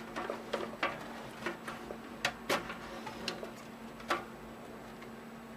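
Irregular plastic clicks and taps as a SATA power connector and its cable are handled inside a desktop computer case, about a dozen over the first four seconds, then stopping. A faint steady hum runs underneath.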